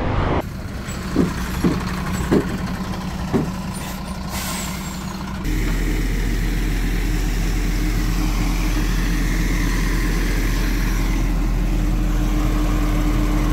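A few short knocks, then from about five seconds in the tow truck's engine runs steadily with a deep hum as its crane lifts the car on straps.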